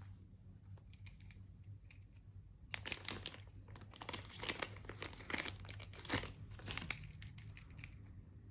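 Crinkling and rustling of paper-like sheet material, handled in a dense crackly burst that starts about three seconds in and lasts about four seconds, sharpest at its start and near its end.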